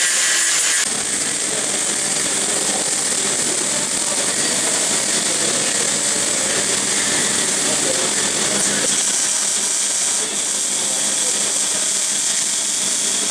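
Angle grinder grinding a steel pipe for the first second, then the steady hiss and crackle of pipe welding, loud throughout.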